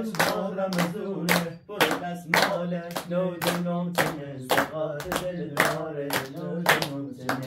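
Hands clapping in a steady beat, about two claps a second, with a voice singing along.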